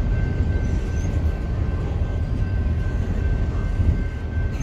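Double-stack intermodal freight train rolling past close by: a steady low rumble, with a faint steady high-pitched tone over it.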